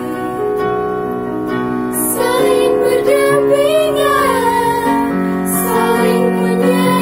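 Small girls' choir singing a slow song with a Yamaha electronic keyboard holding chords underneath, the chords changing a couple of times.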